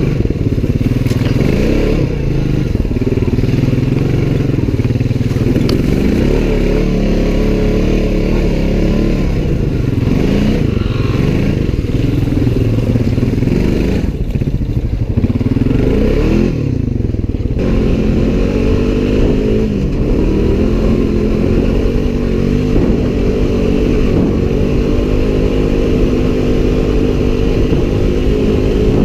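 Off-road vehicle engine running under load on a trail, its revs rising and falling repeatedly for most of the first eighteen seconds, then holding a steadier note.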